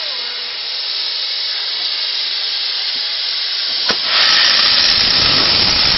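Steam hissing steadily from A1 Pacific steam locomotive 60163 Tornado, which grows suddenly louder after a sharp click about four seconds in.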